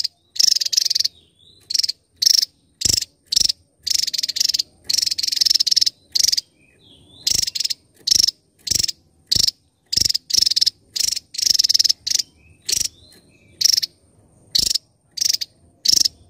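Javan tesia singing: a run of loud, high, rapid trilled bursts, some short and some stretching to about a second, coming roughly once or twice a second with silent gaps between.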